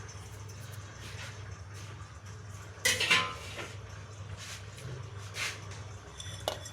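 Kitchen utensils clinking and clattering against a container, with one loud metallic clatter about three seconds in and a few lighter taps around it, as chopped coriander leaves go into a blender jar. A faint steady low hum runs underneath.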